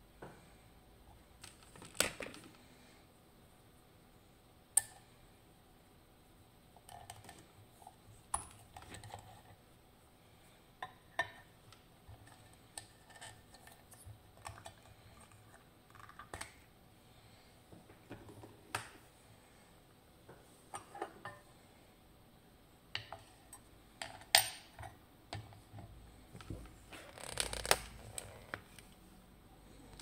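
Scattered sharp metallic clicks, clinks and knocks as a Ruko 500 lock cylinder is unscrewed from a lockpicking vise and handled, with a denser run of knocks near the end.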